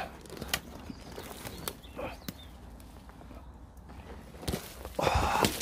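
Footsteps on a steep bank of loose soil and dead twigs, with a few sharp twig cracks, then a louder burst of rustling close to the microphone about five seconds in.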